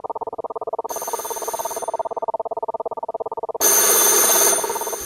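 Telephone bell ringing in a rapid, continuous trill. About three and a half seconds in, a louder, harsher burst comes in and then breaks off near the end.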